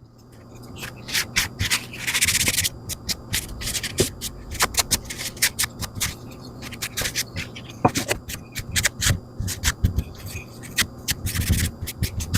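Hands handling a wooden flip-stop block and its hardware: many small knocks and clicks, with two short scraping rubs, one about two seconds in and one near the end, over a steady low hum.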